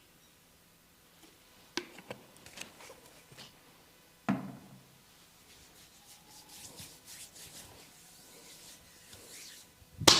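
Hands rubbing and working over skin during a massage, with a few sharp pats or slaps: one stronger one about four seconds in and a loud one right at the end.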